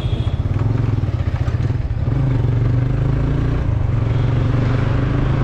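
Motorcycle engine running on the move, a steady low drone over road noise that gets a little louder about two seconds in.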